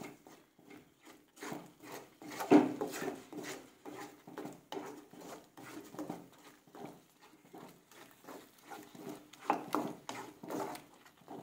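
Wooden spatula stirring and scraping a thick ground masala paste in a kadai as it is sautéed in oil: a series of irregular soft scrapes and slaps, with a sharper knock about two and a half seconds in.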